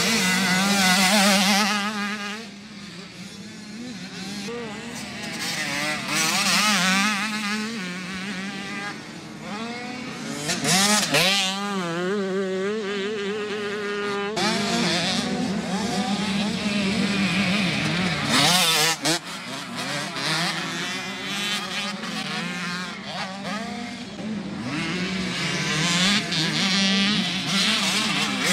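Dirt bike engines revving, the pitch rising and falling again and again as the riders accelerate and shift through corners on a motocross track. The sound changes abruptly a few times.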